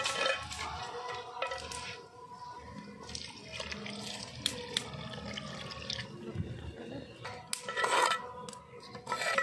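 Liquid poured from a steel bowl into a steaming clay pot of curry, splashing in. Near the end a steel spoon stirs and scrapes against the clay pot.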